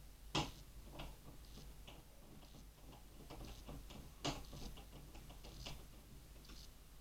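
Scattered light clicks and taps of small screws and metal computer parts being handled and driven with a screwdriver. The two sharpest clicks come about half a second in and just after four seconds.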